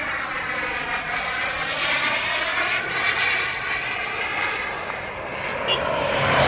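Twin 120 N model turbine engines of a CARF Su-27 radio-controlled jet in flight, a steady jet sound that swells louder near the end.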